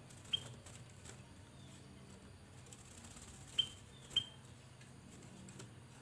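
Ruby-throated bulbul (kutilang emas) giving three short, sharp, high-pitched calls: one about a third of a second in, then two close together past the middle.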